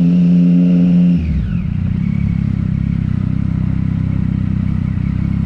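Triumph Street Triple's inline three-cylinder engine running under way, holding steady revs and then easing off about a second in as the revs drop, then running on at low revs.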